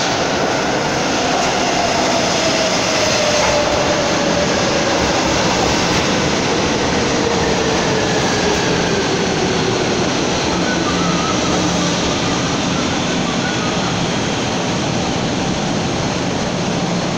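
São Paulo Metro K-series train pulling into an underground station platform: a loud, steady rush of wheels on rail, with a whine that falls slowly in pitch as the train slows.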